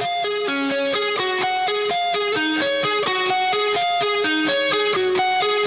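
Background music: a guitar picking a repeating melody of quick notes at a steady level.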